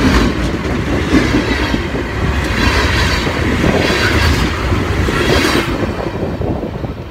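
Huron & Eastern freight train cars rolling past close by, their steel wheels clattering on the rails over a low rumble. The clatter swells in waves about every second and a half and fades near the end.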